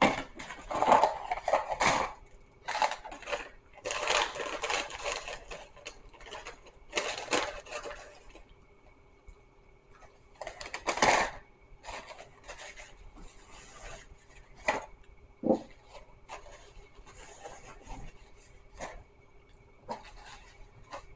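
Close-up eating sounds: a person chewing and handling fast-food and its packaging, in irregular bursts of crunching, rustling and clicks.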